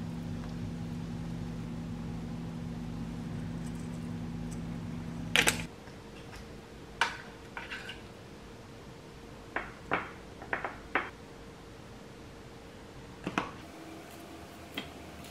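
A kitchen appliance motor hums steadily, then stops about five and a half seconds in, right after a loud clack. After that, ceramic bowls and metal tongs clink and knock on the counter several times as food is plated.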